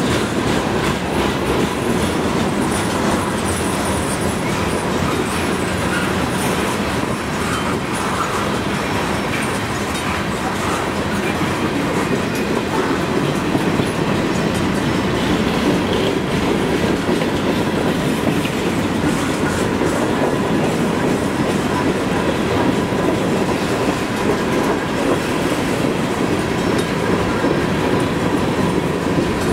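A long freight train of covered hopper cars rolling past: a steady rumble of steel wheels on the rails, with scattered clicks from the wheels and car couplings.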